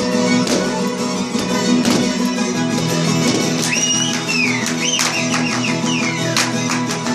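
Romanian folk dance music: a fiddle over a steady plucked-string accompaniment, with sharp regular beats, and high sliding notes from about halfway through.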